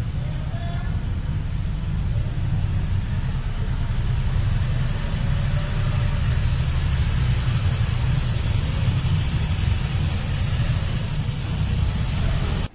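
Loud, steady low rumble with a hiss over it, which stops suddenly at the end.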